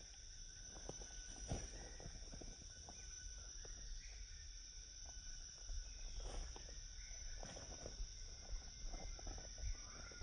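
Night insects chirring in a steady high-pitched drone, with a few small clicks and rustles scattered through it.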